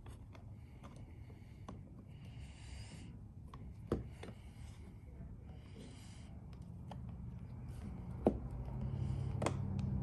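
Hand working the metal parts of a Baldwin 6020 mortise lock case: light rubbing and scraping with scattered small clicks, and sharper clicks about four and eight seconds in. A low steady hum comes in near the end.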